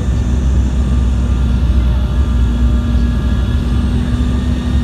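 Airliner cabin noise: a steady, loud low rumble of the engines and airflow with a constant hum, heard from inside the passenger cabin.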